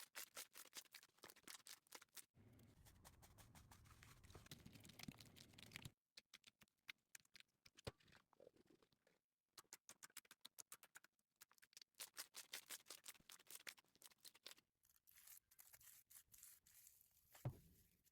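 Slime being pressed and squeezed by hand: quick runs of crackly clicks and pops, with a softer squelching stretch in between, the pattern changing abruptly every few seconds.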